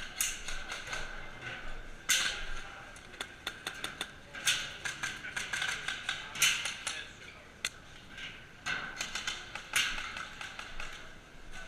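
Irregular sharp clicks and snaps, a handful much louder than the rest, over a faint steady high hum.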